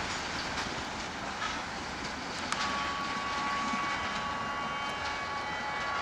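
Freight train's last wagons rolling away over the track, a steady rush of wheel and rail noise. About halfway through, a steady high-pitched tone of several pitches comes in and holds.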